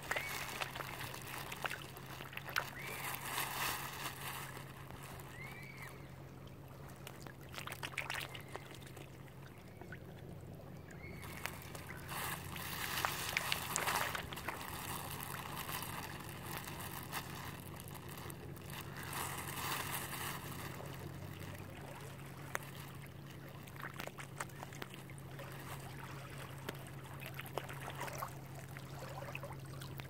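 Lake water lapping and sloshing at the edge among swimming mute swans and mallards, coming in several splashy bursts over a steady low hum.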